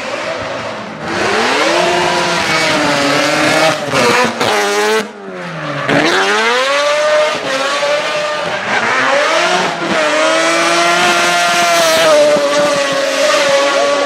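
Rotary-engined drift car driven hard with tyres squealing: the engine climbs in pitch, breaks off briefly about four seconds in, drops low near the middle, then climbs again and holds a high rev.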